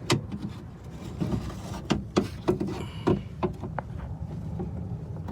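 Irregular sharp clicks and knocks, about ten over a few seconds, of tools and metal parts at work while a new door lock actuator is fastened into a car door.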